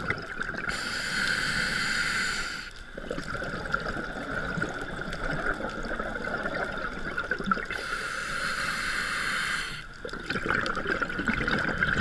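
Scuba diver breathing through a regulator underwater: two long hissing inhales, about a second in and about eight seconds in, each followed by a bubbling, gurgling exhale. A steady high whine runs underneath.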